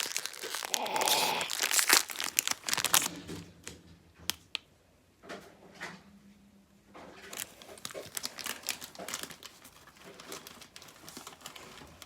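A crinkly plastic snack bag of Cheetos Balls being torn open and handled, with dense crackling over the first three seconds or so, then lighter, scattered rustles.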